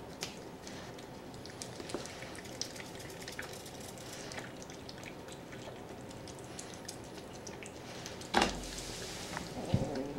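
Domestic cat eating wet food from a plate: quiet, irregular wet chewing and smacking clicks. About eight seconds in there is a louder sudden knock followed by a brief rustle, and another knock just before the end.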